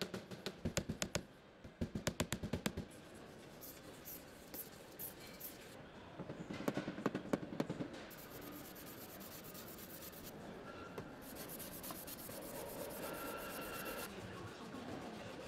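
A hand hammer tapping a metal car-body panel in quick runs of light taps, twice with a pause between, then more taps; later a steady scratchy rubbing as a gloved hand works over the panel surface, with faint music underneath.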